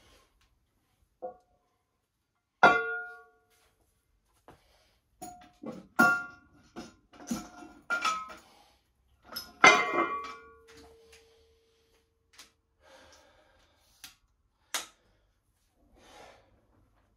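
Metal barbell weight plates clanking against each other and the bar: a string of sharp, irregularly spaced clanks, each ringing briefly. The loudest come about three seconds in and near ten seconds in.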